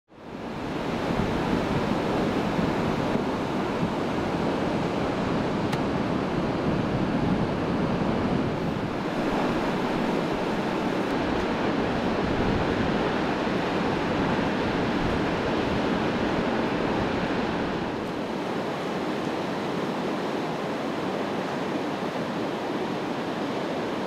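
Niagara Falls pouring over its crest: a steady, dense rush of falling water, shifting slightly in tone about nine and again about eighteen seconds in.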